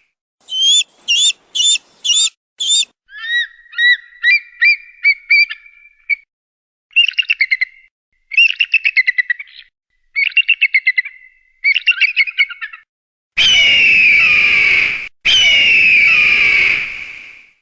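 Eagle calls in several separate recordings, one after another: first about five high, piercing notes; then a quick run of shorter notes; then four bursts of chattering trills; and near the end two long, harsh screams.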